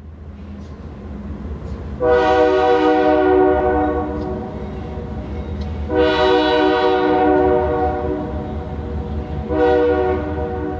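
Train horn sounding three blasts, two long ones and a shorter third near the end, over a steady low rumble from the train.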